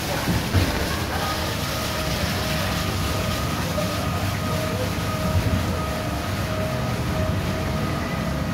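Würmling Express ride car running along its monorail track, heard from on board: a steady rumble, with a faint steady whine joining about a second in and a single knock near the start.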